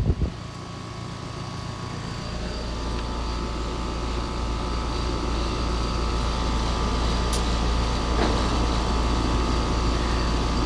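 Steady machine hum that starts about two seconds in and builds a little in level, with a few faint clicks later on.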